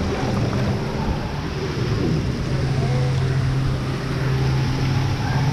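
Water rushing and splashing around a camera riding at the surface of a water-park river, with a steady low hum underneath that is strongest in the second half.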